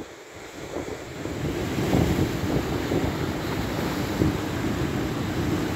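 Sea water surging and foaming through a gap between rocks, with wind buffeting the microphone. It starts quiet and swells about a second in, then runs as a steady rushing wash.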